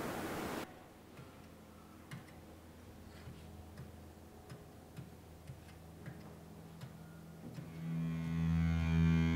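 Light taps of a flat metal blade on a wooden sill as capsules and powder are chopped and pushed aside, roughly one tap every half second. Near the end, distorted electric guitar music comes in and grows louder.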